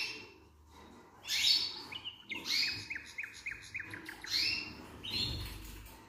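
Canaries chirping in their cages: several short falling chirps, with a quick run of repeated notes from about two to four seconds in.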